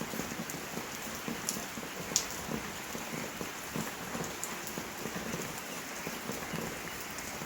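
Steady rain falling, with scattered drops pattering on surfaces and one sharper, louder drop impact about two seconds in.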